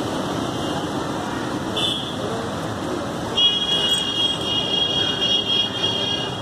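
Steady noise of road traffic, with a brief high-pitched electronic tone about two seconds in, then a louder high-pitched tone like a vehicle horn or buzzer held for about three seconds from halfway through.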